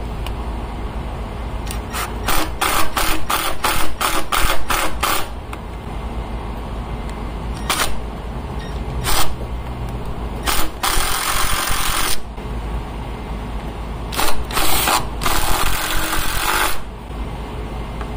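Milwaukee cordless impact driver driving screws through a stainless transducer mounting bracket into a fiberglass boat transom: a quick string of short trigger bursts a couple of seconds in, then a few longer hammering runs as the screws are run home near the end. A steady air-conditioner hum runs underneath.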